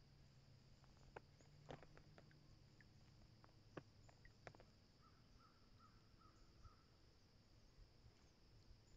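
Near silence: a steady faint high drone, a handful of sharp faint clicks in the first half, and a short run of about six faint calls a little past the middle.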